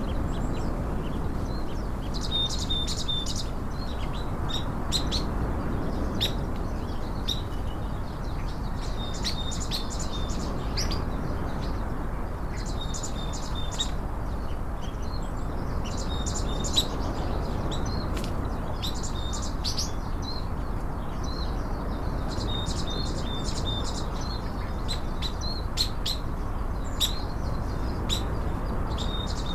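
Small birds chirping, a short burst of high chirps and notes coming every few seconds, over a steady low background noise.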